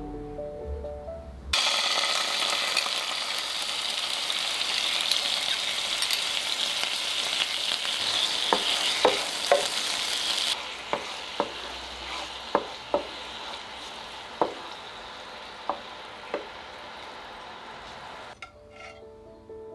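Oil sauce with chopped chilli and herbs sizzling in a frying pan as it is stirred with a wooden spoon, which knocks sharply against the pan about a dozen times. The sizzling drops to a much quieter hiss about ten seconds in.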